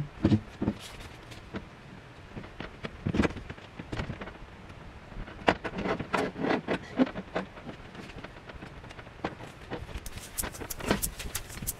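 Scattered knocks, clanks and rattles of a miter saw on a wheeled folding metal stand being hauled out of a truck bed and set up, with a quick run of clicks near the end.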